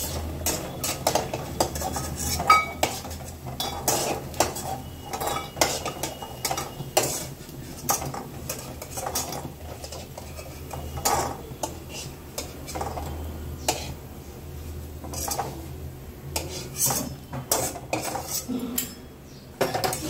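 A metal ladle clinks and scrapes against an aluminium kadai and a steel bowl as fried pieces are lifted out of the oil, with irregular clinks throughout.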